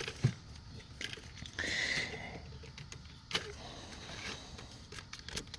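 Hands working an ignition-coil wiring connector: a few sharp clicks, with a brief scraping rasp about two seconds in.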